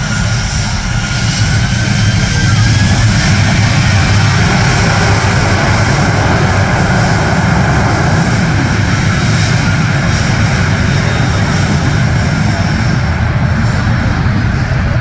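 Boeing 737-800's CFM56-7B turbofan engines running at takeoff power: a loud, steady jet noise heaviest in the low end. A faint whine rises slightly in pitch as the sound grows louder about two seconds in.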